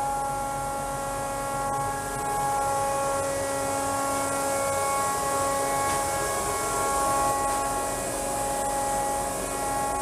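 Workshop central dust extraction system running: a steady hum with several fixed whining tones over the noise of moving air.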